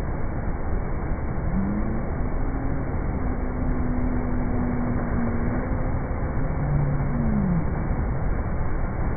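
Ocean surf breaking and washing onto the beach, a steady wash of noise. A faint held tone rises in about a second and a half in and fades out near the end.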